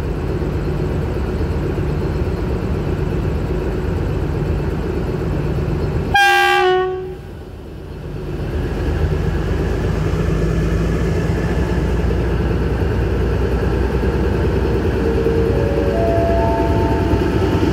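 Diesel locomotive engine idling at a station, with one short, loud horn blast about six seconds in. Near the end the engine note climbs in steps as the train starts to pull away.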